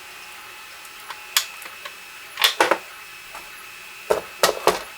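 Handling of small 3D-printed plastic case legs and springs: a few sharp clicks and taps, one about a second in, a cluster midway and another near the end, over a faint steady high hum.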